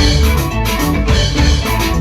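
Loud band music with drums and a heavy bass, playing continuously.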